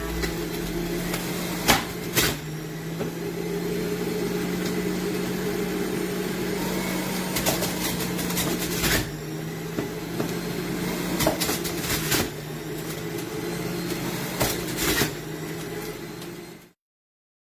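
Slow juicer's electric motor running with a steady hum, broken by sharp clicks and knocks as it works, then cutting off abruptly near the end.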